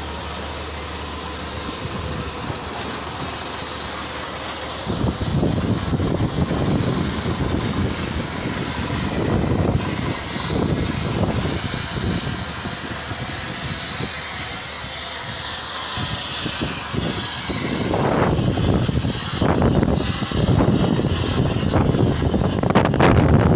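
KCP concrete pump running: steady machine noise, then irregular low surges from about five seconds in, growing louder near the end.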